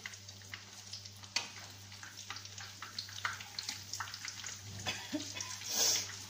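Breaded chicken patties sizzling and crackling in shallow frying oil, with many small pops. About six seconds in, the sizzling surges briefly as tongs turn a patty in the oil.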